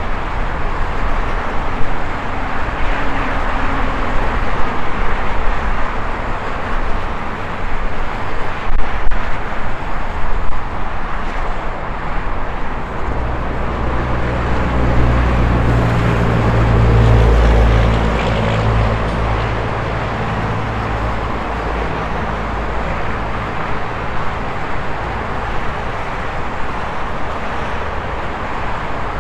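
Steady highway traffic with tyre noise from passing vehicles; about halfway through, a heavy truck passes with a low engine rumble that swells and then fades.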